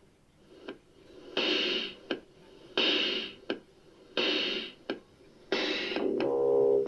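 Music: a slow beat of bright, noisy percussion hits about every second and a half, with short ticks between them; sustained pitched chords come in near the end.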